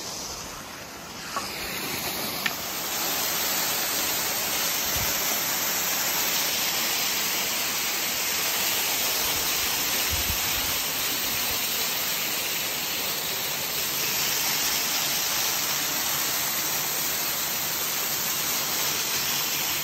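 Steady rush of flowing water, an even hiss that sets in about two and a half seconds in and holds without change.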